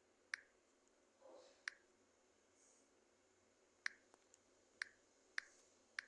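Near silence broken by about six short, sharp clicks at irregular intervals.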